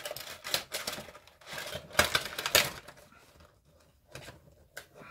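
A cardboard Funko Pop vinyl figure box and its insert being handled: a run of clicks and knocks, loudest about two seconds in, then fainter ticks.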